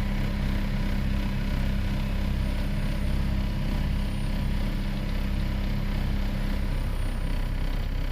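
Steady low mechanical rumble, like a running engine or motor, with a humming tone over it that cuts off about two-thirds of the way through.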